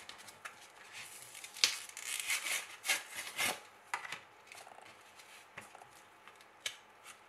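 Card-and-plastic blister pack of airbrush replacement parts being peeled open and handled with nitrile-gloved hands: irregular crinkling, rubbing and tearing with sharp clicks, busiest from about one and a half to four seconds in, then a few faint clicks.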